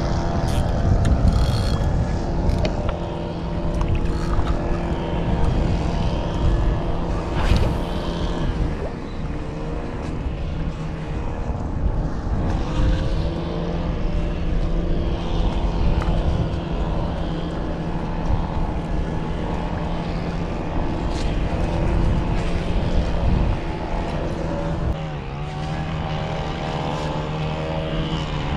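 Boat motor running steadily with a droning hum, its pitch wavering near the end.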